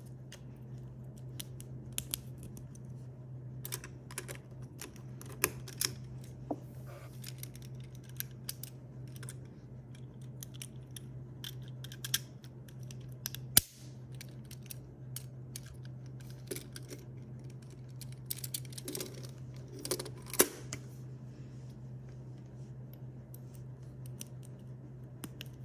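Plastic Lego Technic pieces clicking and snapping as they are handled and fitted together by hand: irregular sharp clicks, thickest about three quarters of the way through. A steady low hum runs underneath.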